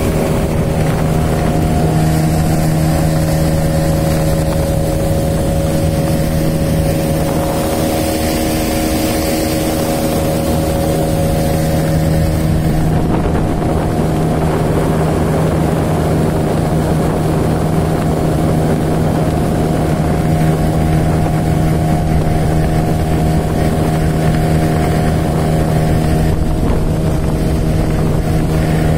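Parsun T15 BMS two-stroke outboard motor running steadily under way, pushing an inflatable boat, with wind buffeting the microphone.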